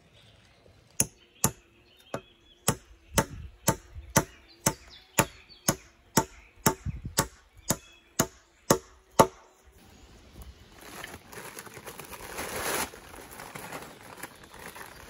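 Wooden mallet knocking on log roof poles, about seventeen sharp wood-on-wood strikes at roughly two a second, stopping about nine seconds in. Rustling of a sack being handled follows.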